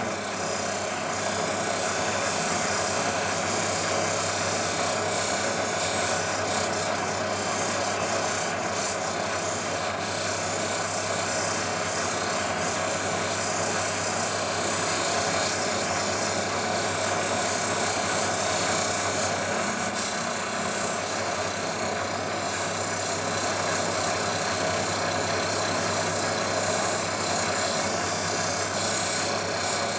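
Opal stone rubbing against a running, water-fed 3000-grit flexi wheel on a lapidary machine, over the steady hum of its motor: the pre-polish stage before cerium oxide. A few brief louder scrapes break in about 8 and 21 seconds in and near the end.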